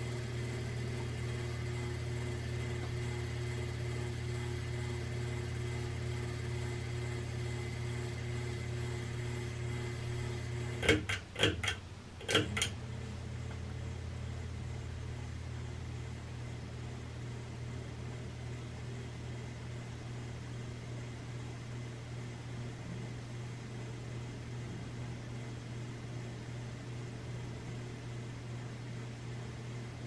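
1997 Hampton Bay Rockport ceiling fan motor running with a steady low hum and a faint buzz. Its pull chain is on low, so the motor is given too little capacitance for the speed it is trying to reach. About eleven seconds in there are a few sharp clicks, and the higher part of the hum drops away as the fan's speed setting changes.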